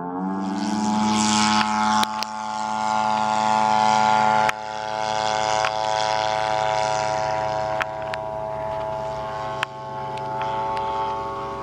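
A giant-scale RC Boeing P-26's Zenoah G62 single-cylinder two-stroke gas engine and propeller open up to high power for the takeoff. The engine then runs steadily at full throttle as the plane climbs away. A few sharp clicks come through, and the sound drops abruptly about four seconds in.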